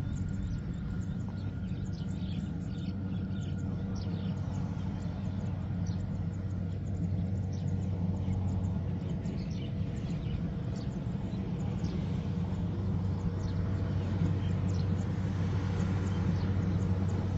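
Heavy diesel machine's engine running steadily with a low even hum, and many short high-pitched chirps or squeaks over it.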